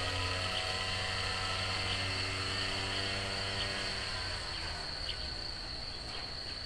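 Steady, high-pitched insect chirring, likely crickets, with a few held low tones fading out about four seconds in.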